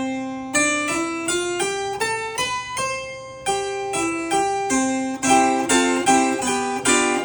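Sperrhake Passau harpsichord played on a register engaged by a lever that is not yet finished being restored: a short phrase of single plucked notes stepping up and down, with two-note chords toward the end. It doesn't sound very good yet.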